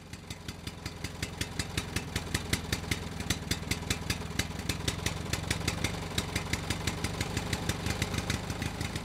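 An engine idling steadily with an even, rapid ticking of about six to seven beats a second, swelling up over the first couple of seconds.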